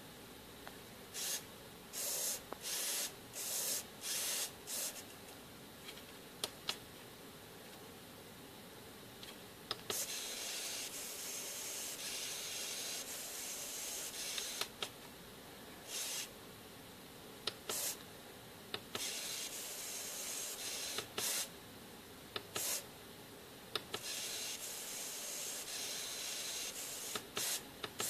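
Three small hobby servos driven together by a servo tester, whirring with a high, hissy sound as their horns swing: first in several short bursts, then in longer runs of a few seconds each, with brief clicks in between.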